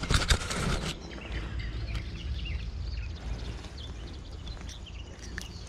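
Handling noise, rustling and a few knocks, in the first second. Then the steady flow of a shallow river, with faint bird chirps over it.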